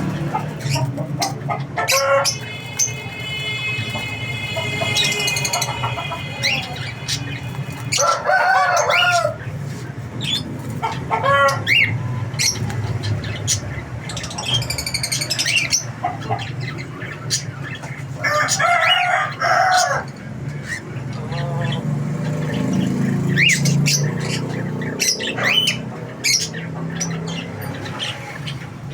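Several roosters crowing and chickens clucking, with repeated calls of a second or two each, mixed with high chirps over a steady low background rumble.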